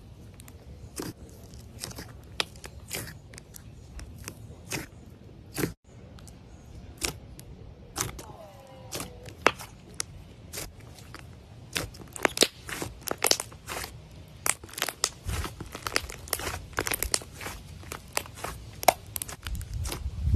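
Soft clay slime being kneaded, folded and pressed by fingers, giving many sharp, irregular clicks and pops from squeezed air pockets. The clicks come thicker in the second half.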